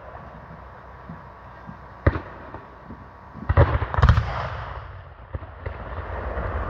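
Black-powder blank gunfire in a Civil War battle reenactment: a single shot about two seconds in, then a ragged burst of several shots around three and a half to four seconds, and a few scattered shots after that.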